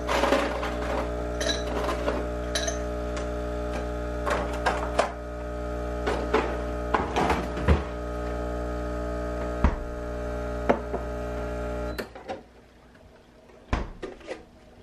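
Breville Barista Express Impress espresso machine's pump humming steadily while an espresso shot pulls, cutting off suddenly about twelve seconds in as the shot ends. Scattered light clicks and a couple of small knocks near the end.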